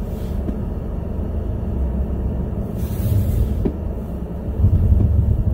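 Car cabin noise while driving: a steady low rumble of engine and tyres on a snowy road, growing a little louder near the end.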